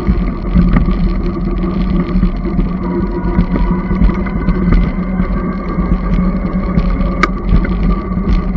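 Magnum Premium electric bike riding along a paved road: a steady rush of wind on the microphone and road rumble, with a steady hum underneath. There are a few light rattles and one sharp click about seven seconds in.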